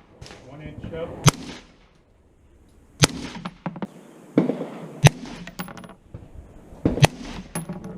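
Rifle shots fired one at a time: four sharp cracks about two seconds apart.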